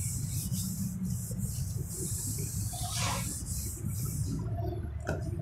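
Felt whiteboard eraser wiping across a whiteboard in repeated hissing strokes, about two a second, stopping a little after four seconds in, followed by a single tap near the end, over a steady low hum.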